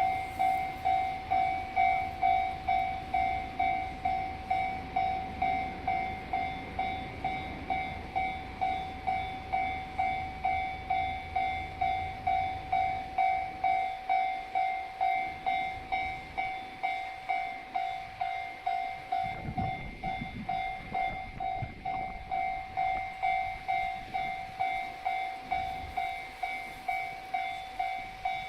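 Japanese railway level-crossing warning bell ringing a steady, even "kan-kan" at about two strikes a second, the sign that a train is approaching or standing at the crossing. A low rumble sits under it for roughly the first half.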